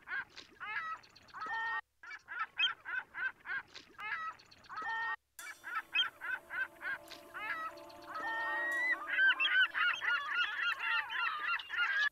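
Intro of a psychedelic song before the drums enter: a looped pattern of short rising-and-falling calls, about four a second, in repeating phrases broken by sudden brief silences. A steady low drone joins about five seconds in, and the calls grow denser toward the end.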